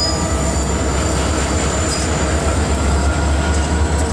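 Diesel locomotive heard from inside its cab: a steady low engine drone with rail and cab noise, and a thin high whine held throughout.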